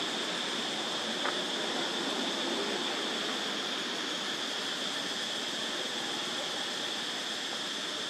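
Steady forest ambience: a continuous high-pitched insect drone over an even hiss, with one faint click about a second in.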